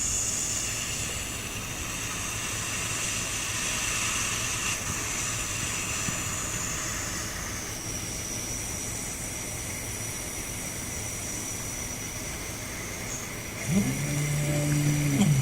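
Rhino Arc motorised slider head giving off a steady electronic hiss with a thin high whistle, 'like a tiny little kettle', from inside its body: a noise the owner reports as a fault. The whistle shifts in pitch about eight seconds in, and near the end a motor whirs up, runs briefly and winds down.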